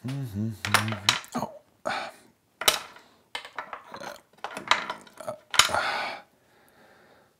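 Plastic Sonicare toothbrush heads clattering and toppling over on a cabinet shelf as they are fumbled with the toothbrush handle: a run of light knocks and clicks.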